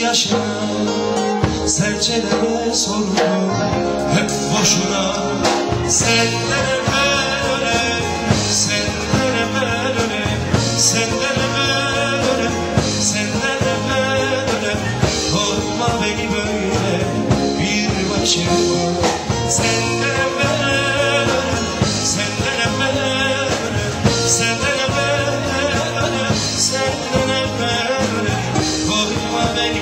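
Live concert music: a band playing a Turkish folk song, with singing over the instruments.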